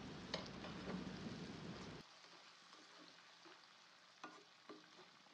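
Faint sizzling of green chilies and peas frying in oil in a stone-coated pan while a spatula stirs them. The sizzle drops away abruptly about two seconds in, leaving a few light taps of the spatula on the pan.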